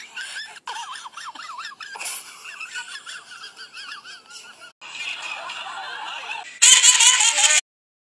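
High-pitched, warbling giggling laughter, an added comedy sound effect, repeating in quick wobbles. There is a louder burst of it near the end, which then cuts off abruptly.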